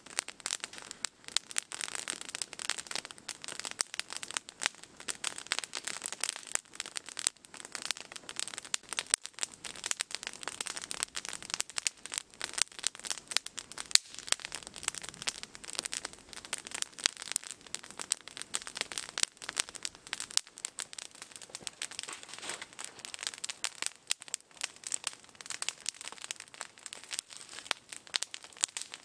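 Wood campfire of maple and resin-rich spruce limbs burning, with dense, fast crackling and sharp pops.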